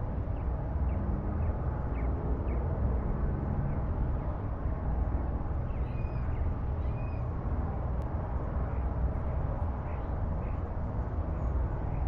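Outdoor ambience: a steady low rumbling noise, with faint short bird chirps every half second or so and two longer warbling calls about halfway through.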